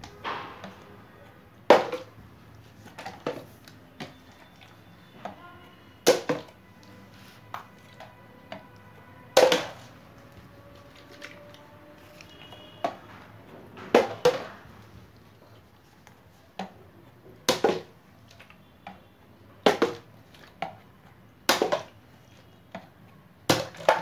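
A plastic Rubik's cube flipped and landing again and again on a rubber cube mat: about a dozen short, sharp clacks one to three seconds apart, some followed by a quick second knock as it bounces.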